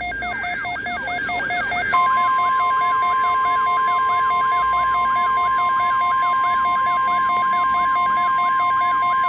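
NOAA Weather Radio alert: a steady, single-pitch 1050 Hz warning tone starts about two seconds in and holds, over an electronic siren-like alarm that sweeps up and down about three times a second with pulsing beeps. It is the attention signal that comes before a new broadcast alert message.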